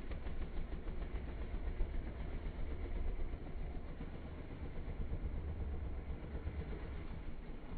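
ATV engine running steadily, with a strong low rumble.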